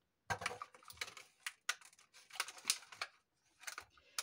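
Pieces of cut plastic bottle clicking and crackling as they are handled, a string of irregular separate clicks and rustles.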